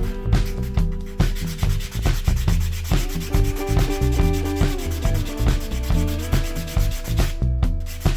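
A laser cutter's gantry stepper motors whine as the head moves, the tones stepping to new pitches every second or so as its speed and direction change, over a low rhythmic rumble and rapid clicking.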